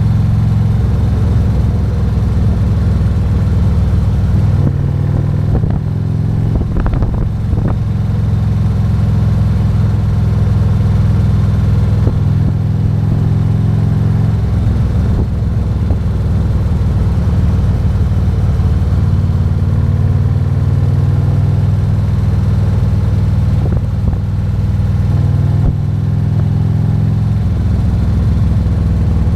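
Harley-Davidson Road King's Zipper's 117 cubic inch V-twin engine running under way with road noise, its pitch shifting up and down a few times with speed.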